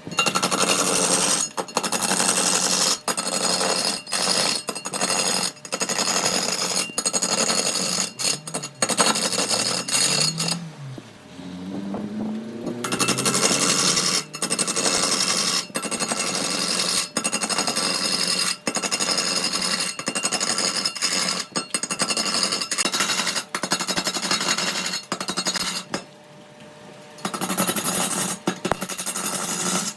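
Electric power tool working wood, running loud with many brief breaks. It drops out twice for a second or more, and after the first break the motor's pitch rises as it spins back up.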